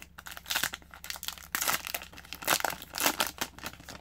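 Foil wrapper of a hockey trading-card pack crinkling and tearing as the pack is opened and the cards are handled, in several loud rustling bursts.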